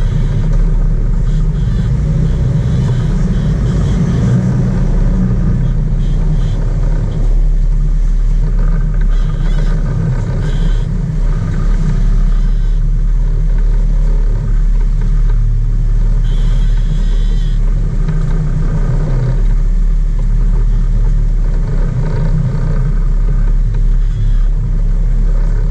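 Sport-fishing boat's engine running steadily under way, a deep, even drone, with water churning in the wake behind the stern.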